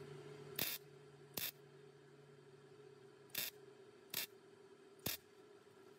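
Five short zaps from a MIG welder tacking sheet metal, each lasting a fraction of a second and spaced unevenly. A faint steady hum runs underneath.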